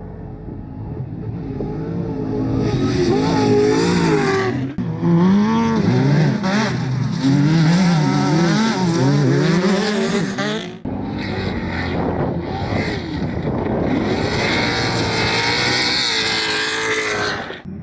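Off-road race vehicle engines revving hard, pitch rising and falling again and again as they accelerate and lift. The sound is in a few separate shots with abrupt changes about 5 and 11 seconds in.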